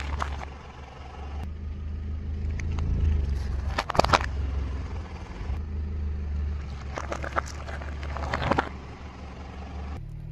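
Car idling with a steady low rumble while a tyre rolls over small brittle objects on asphalt, among them a hard-candy lollipop. The objects give sharp cracks and crackling about four seconds in and again between about seven and eight and a half seconds.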